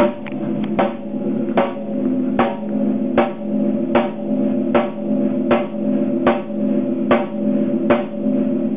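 A single drum struck over and over at a steady, even pace, about once every 0.8 seconds, each hit ringing on into the next: one drum being played repeatedly for a studio soundcheck while its sound is set at the mixing console.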